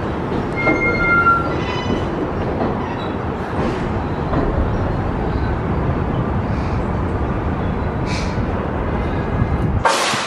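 A New York City 7 train of R188 subway cars rumbling slowly along the elevated platform. A brief high wheel squeal comes about a second in, and a sudden sharp burst of noise sounds at the very end.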